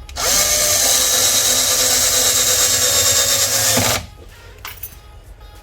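Cordless drill motor spinning up, running steadily for about four seconds, then winding down and stopping.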